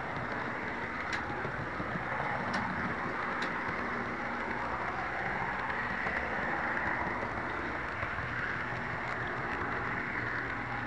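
HO-scale model train running along its track, heard from a camera riding on the train: a steady rumble of wheels and motor, with three sharp clicks in the first few seconds.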